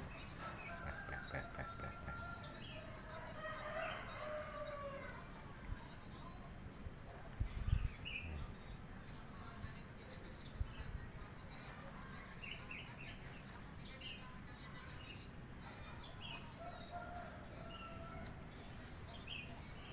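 Chickens calling and a rooster crowing in the first few seconds, with small birds chirping on and off throughout. A few low thumps come about eight seconds in.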